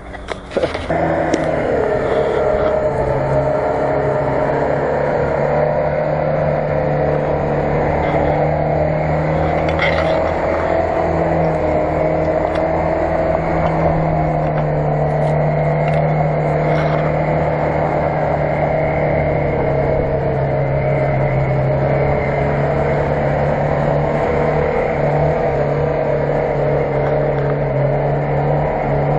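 Lada Niva's four-cylinder engine running at steady revs under load as the 4x4 crawls through deep mud.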